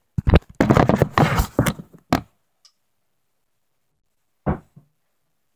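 Handling noise from a phone or camera being put back in place: about two seconds of rubbing and knocking on its microphone, then one short knock about four and a half seconds in.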